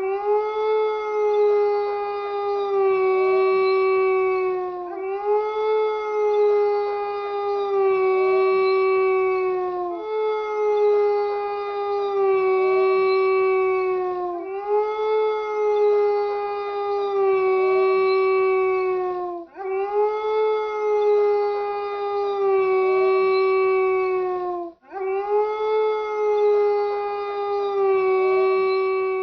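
Wolf howling: one long call that rises slightly at the start and sags in pitch toward the end, repeated six times back to back with the same shape each time, about five seconds per howl.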